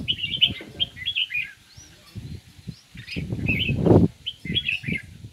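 Several caged songbirds chirping and twittering in quick short calls. A louder low rustling noise swells about three seconds in and fades about a second later.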